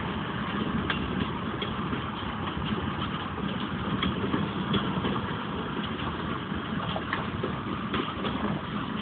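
Freight train cars rolling past: a steady rumble of steel wheels on the rails, with scattered clicks and clanks throughout.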